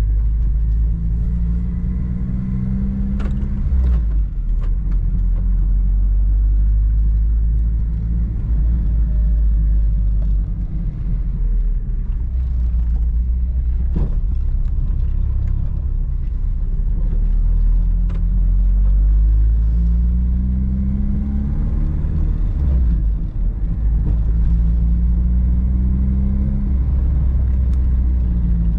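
Honda Civic Si driving, with a steady low rumble. The engine note climbs as it accelerates, then drops at gear shifts about four seconds in and again about twenty-three seconds in, and it climbs once more near the end.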